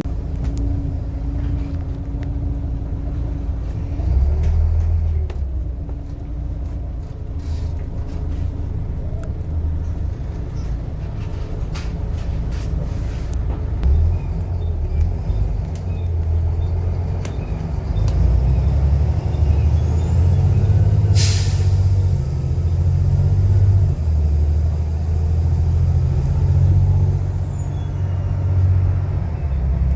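Volvo B7TL double-decker bus's turbocharged six-cylinder diesel running, its rumble growing louder about two-thirds of the way in. A high turbo whistle rises at that point, holds and falls away near the end, with a short sharp hiss of air just after the whistle starts.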